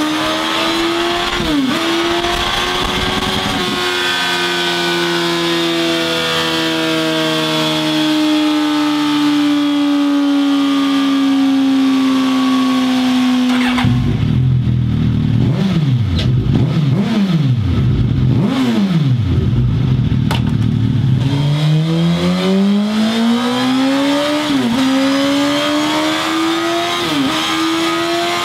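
Suzuki Katana's inline-four engine running hard on a dynamometer. First on its stock exhaust: two quick pitch drops at upshifts near the start, then a long steady note that sinks slowly. After a cut it runs through a Scorpion Red Power slip-on silencer, revved up and down several times, then climbing steadily in pitch with two drops at upshifts near the end.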